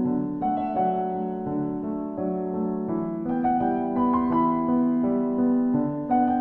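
Background piano music: held notes and chords that change every second or so, with no drums.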